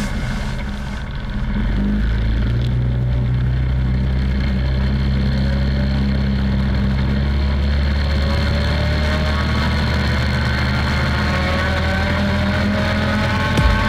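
Quad bike (ATV) engine running under way, heard from the rider's own machine; about halfway through its pitch begins rising steadily as it accelerates.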